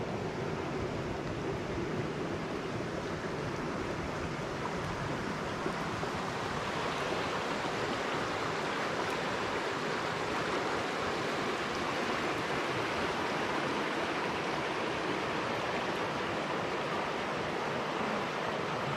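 Steady rushing of running water from a stream, an even, unbroken wash that grows slightly louder about six seconds in.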